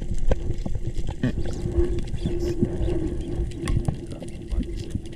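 Underwater reef noise picked up by an action camera: a dense crackle of sharp clicks, typical of snapping shrimp, over a steady low hum that wavers slightly in pitch.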